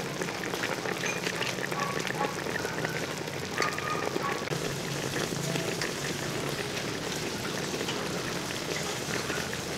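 A large pot of duck pieces boiling in water to tenderise them: a steady, dense patter of small bubbling pops, with a faint low hum underneath.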